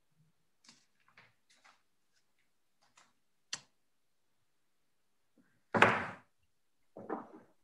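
A few light clicks and knocks, then one loud thump about six seconds in and a smaller knock about a second later, coming through a participant's open microphone on a video call.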